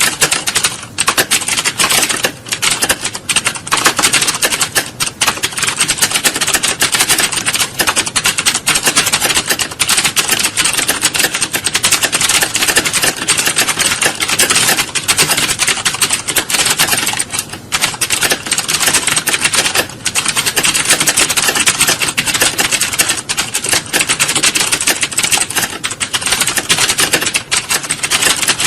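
Computer keyboards being typed on at once, as in a typing-test hall: a dense, continuous clatter of keystrokes with no pauses.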